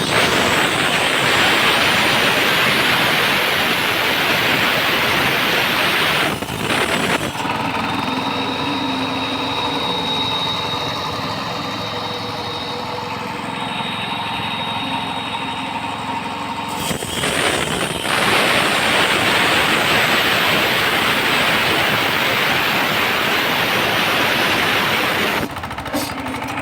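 Concrete road cutter running, its saw grinding through the concrete road with a loud, noisy roar. The roar drops away from about 7 to 17 seconds in, leaving the steady hum of the engine, then comes back.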